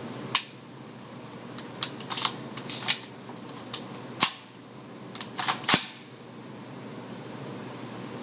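Suppressed 300 Blackout AR-15 firing subsonic rounds through a SilencerCo Osprey 45 suppressor: five short, sharp, quiet reports roughly a second and a half apart, with smaller clicks between them.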